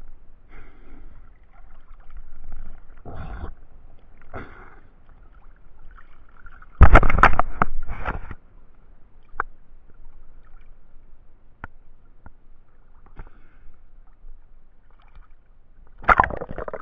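Sea water sloshing and splashing against a mask-mounted camera at the waterline in choppy water. There is a loud splash about seven seconds in and another near the end.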